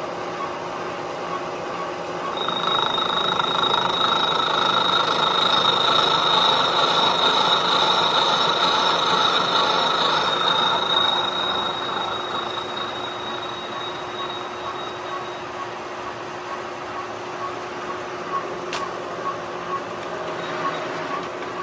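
CNC milling machine running, a steady high spindle whine over cutting and machine noise. It swells about two seconds in, eases off about two-thirds of the way through, and light regular ticking carries on after.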